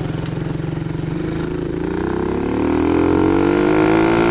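Coolster 125cc ATV's single-cylinder four-stroke engine, fitted with an aftermarket high-performance CDI, running under way at a steady speed, then rising in pitch and getting louder from about a second in as the ATV accelerates.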